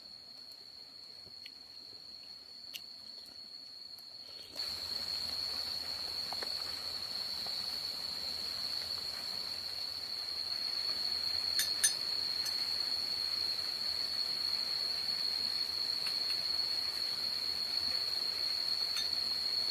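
Insects singing one steady high-pitched drone over a faint hiss of background noise. About four and a half seconds in, the sound suddenly gets louder, and a couple of sharp clicks come about midway.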